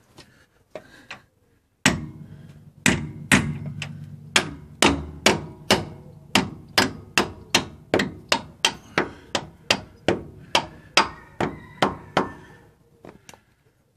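Mallet blows on the steel front axle and radius arm mounting of a Land Rover Defender, knocking the radius arm into place as it is refitted. About thirty sharp strikes start about two seconds in and come roughly three a second, the first heavy ones leaving a low ring in the metal, until they stop near the end.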